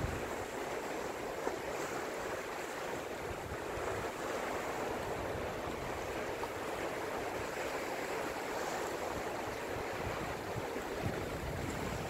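Sea waves washing and breaking around shoreline rocks, a steady hiss of surf that swells slightly now and then.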